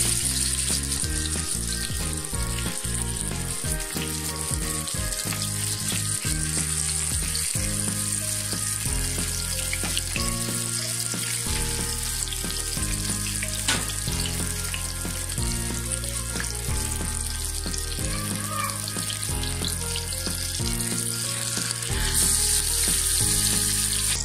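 Marinated pomfret frying in hot oil in a pan, a steady sizzle that gets louder near the end. Background music with a pattern of held low notes plays underneath.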